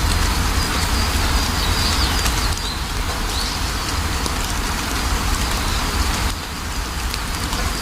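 Steady rain falling, with a deep low rumble underneath and scattered drop ticks. A small bird chirps in short wavering bursts during roughly the first half.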